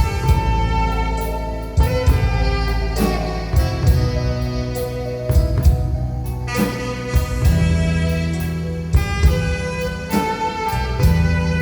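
Live band music with no singing: held melody notes over a steady bass line and a drum kit keeping time, from an alto saxophone, keyboard and drums.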